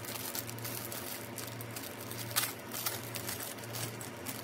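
Clear plastic wrapping crinkling and rustling in irregular bursts as it is handled and pulled off a small accessory by hand, the loudest rustle about halfway through.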